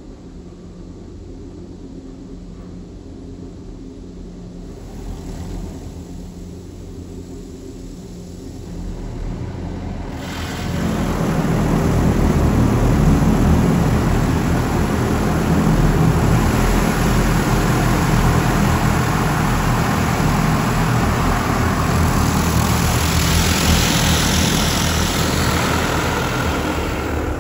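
High-pressure water jets of a Ryko SoftGloss MAXX 3 touch-free car wash spraying the car's body and windows, heard from inside the cabin. For the first ten seconds there is only a low, steady hum; then the spray starts abruptly and runs loud and even, swelling a little near the end.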